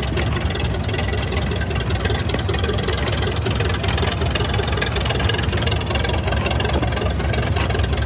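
Antique tractor engines running as the machines drive slowly past, a steady low engine rumble with rapid fine knocking.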